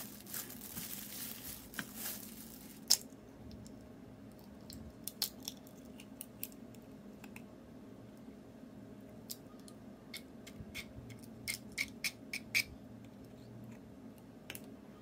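A metal spoon stirring grated potato and carrot with flour in a ceramic bowl, a rustling scrape that ends in a sharp click about three seconds in. Then light, scattered clicks of eggshell as an egg is cracked and separated by hand, with a cluster of sharper clicks near the end.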